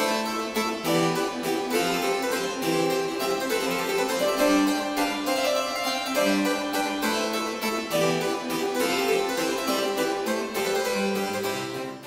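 Background harpsichord music: a steady run of quick, evenly plucked notes.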